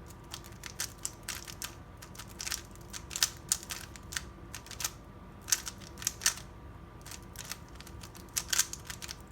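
A 3x3 Rubik's Cube being turned at speed during a speedsolve: a fast, irregular run of plastic clicks and clacks, often in quick clusters of several turns, over a faint steady hum.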